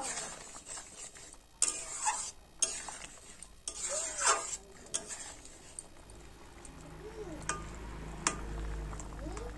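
Flat metal spatula scraping and knocking irregularly against a metal kadai as a thick, simmering curry of taro and potatoes is stirred and broken up.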